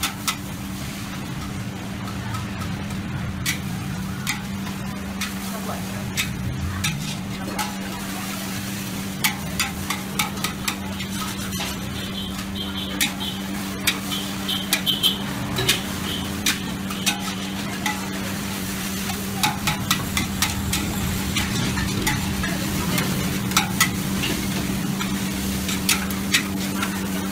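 Noodles being stir-fried in a large wok: a metal spatula and ladle scrape and clack against the pan over and over while the food sizzles. A steady low hum runs underneath.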